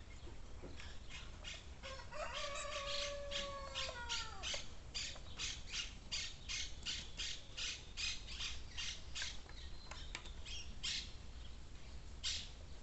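Bird calling: a rapid series of short harsh notes, about three or four a second, with a drawn-out falling call at about two seconds in.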